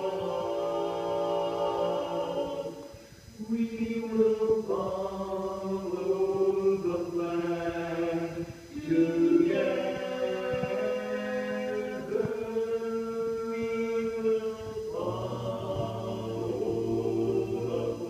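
Barbershop quartet of four men's voices singing a cappella in close four-part harmony, holding long chords, with short breaks between phrases about three and nine seconds in.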